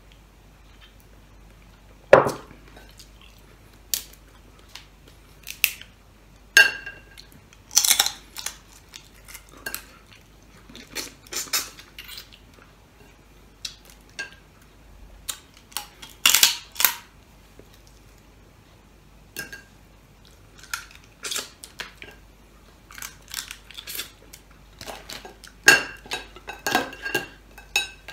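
Irregular clicks, cracks and clinks of eating cooked crabs by hand: shells cracking and snapping apart, and glass and ceramic dishes knocking against each other and the table, some clinks ringing briefly.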